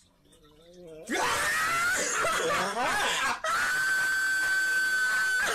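A faint low voice, then about a second in a loud scream that slides up and down in pitch, breaks off briefly, and becomes one long high-pitched shriek held steady for about two seconds.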